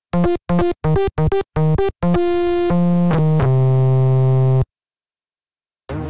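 u-he Hive 2 software synthesizer playing its 'AZ Rattle' preset, a bright buzzy patch: a quick run of short staccato notes, then three held notes stepping down in pitch that cut off sharply, followed by about a second of silence.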